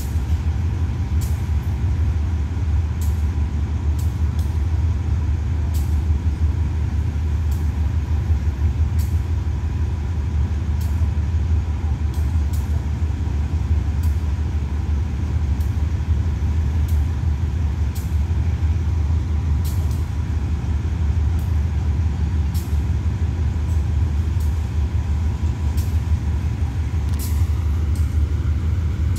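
GEA-class diesel-electric locomotive running with a steady low rumble as it slowly pulls the train away.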